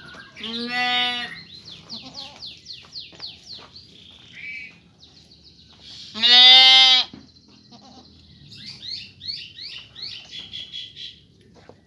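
Two loud bleats from the penned goats and sheep, one about a second in and one about six seconds in. Small birds chirp in quick runs between and after them.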